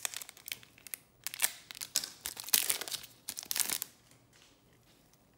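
Foil wrapper of a 2021 Topps Chrome card pack crinkling and tearing as it is ripped open by hand, in a run of crackling bursts that stops about four seconds in.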